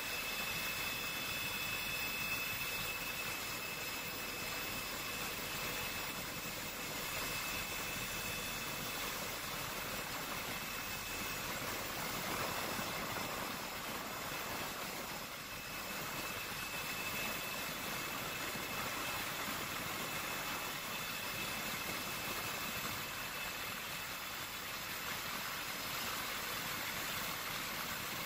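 Steady engine drone and hiss of an aircraft heard from inside its cabin, with a few faint steady whining tones over it.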